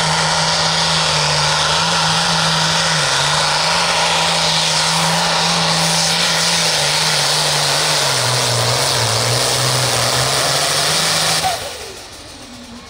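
Modified McCormick Pro Field pulling tractor's turbocharged diesel engine at full throttle pulling the sled, a loud steady drone whose pitch sags over the last few seconds as the engine slows under the load. It cuts off suddenly near the end.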